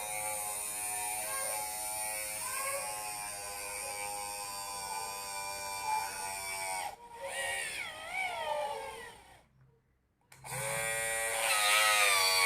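Small handheld electric drill running with a steady whine, its pitch dipping and wavering as it bores holes through a wooden ice-cream stick. It stops for about a second some nine and a half seconds in, then starts again.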